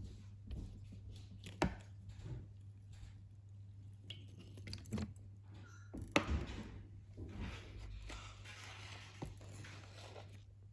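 Kitchen utensils and pan being handled while cooking: scattered light knocks and clatters, the sharpest about a second and a half in and again near the middle, over a steady low hum.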